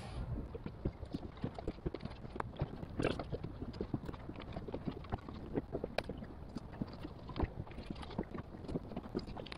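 Irregular light taps and clicks of a fillet knife on a plastic cutting board while yellowtail snapper is filleted, over a low, steady background noise.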